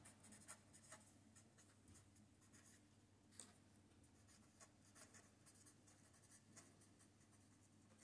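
Faint scratching of a fine-tip pen writing on paper, in short strokes and pauses as letters are formed.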